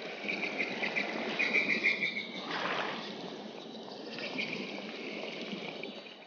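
Running water, a steady rushing trickle, with high chirping over it during the first two seconds or so.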